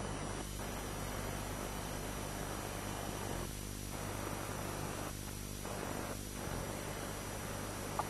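Steady hiss and low electrical hum from an old analogue videotape recording, with no other sound; a single small click near the end.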